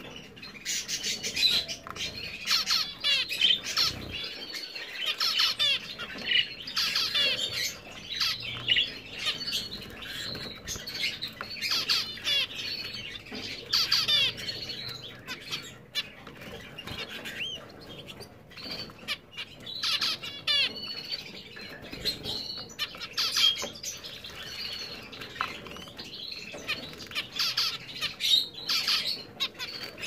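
Zebra finches giving many short calls while they bathe in shallow water dishes, with the flutter of wings and splashing water mixed in.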